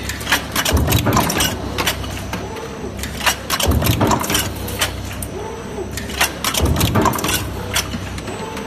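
Automated transfer stamping press line running, with a steady machine hum. A burst of metallic clanking and clattering comes about every three seconds, three times, as the press cycles and the transfer fingers shift the stamped parts.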